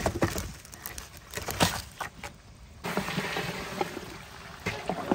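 A long wooden spoon clattering and knocking against a large steel pot as goat trotters are stirred and fried in oil with onion and garlic; from about three seconds in a steady frying sizzle is heard under the knocks.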